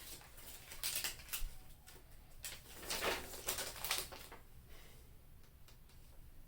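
Plastic snack packaging crinkling and rustling as it is handled, in several short bursts, then quieter after about four seconds.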